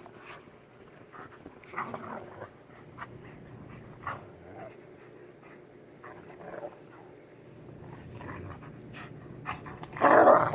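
Dogs panting and making short scuffling sounds as they play, with one loud, short cry from a dog about ten seconds in.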